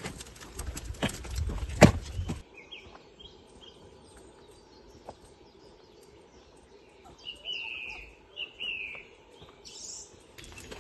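Footsteps and dogs' paws crunching on a gravel path for the first two and a half seconds; the sound then cuts to quiet woodland with songbirds singing, a run of short descending phrases loudest about seven to nine seconds in.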